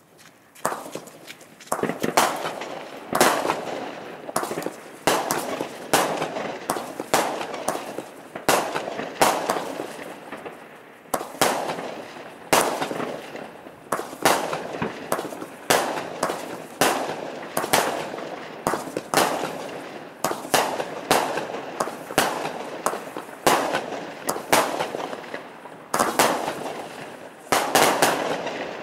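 Herlat Patriot launcher fireworks cake (knalpot) firing shot after shot: a long series of sharp bangs, about one or two a second, each with an echoing tail, ending in a quick cluster of bangs.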